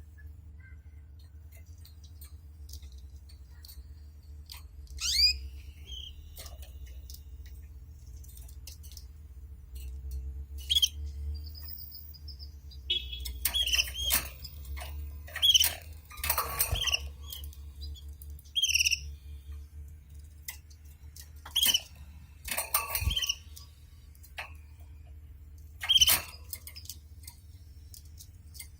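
Domestic canaries giving scattered short chirps and calls, with a denser run of twittering about halfway through and a few sharp single calls later, over a steady low hum.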